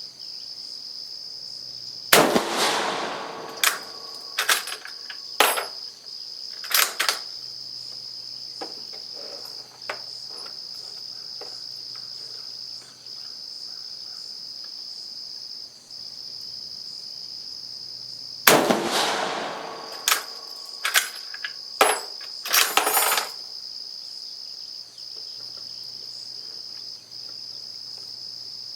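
Two rifle shots from a Carcano M38 7.35 mm bolt-action short rifle, about sixteen seconds apart, each followed by several sharp metallic clicks as the bolt is worked to chamber the next round. A steady high insect drone from crickets runs underneath.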